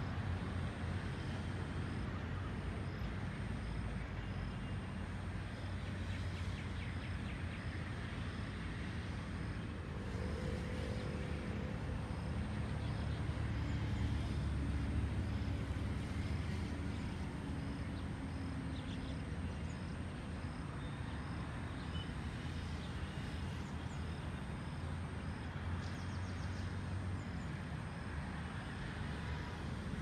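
Steady low rumble of road traffic, swelling a little about halfway through as a vehicle passes.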